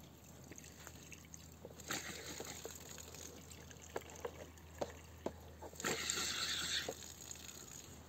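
Water from a hose trickling and splashing onto the grass as hands and face are washed under it, with scattered drips. It splashes harder twice, about two seconds in and again around six seconds in.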